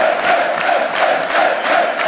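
Large football stadium crowd singing or chanting together, with rhythmic clapping about three to four times a second.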